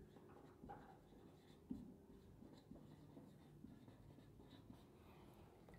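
Faint scratching of a marker pen on a whiteboard: a string of short, irregular strokes as words are written.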